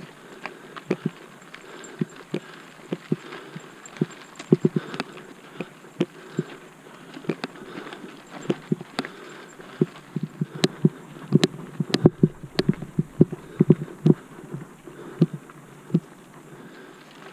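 Mountain bike rattling and clacking over a rough, rocky dirt trail: irregular sharp knocks from the bike and tyres over the bumps, coming thicker and louder about ten seconds in.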